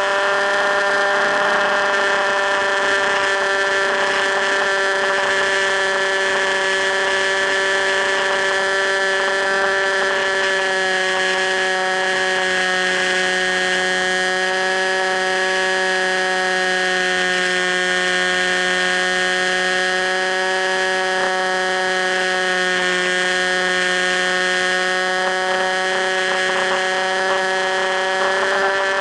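Electric motor and propeller of an FPV Raptor radio-controlled plane running at steady high throttle: one even, high whine that holds nearly the same pitch throughout.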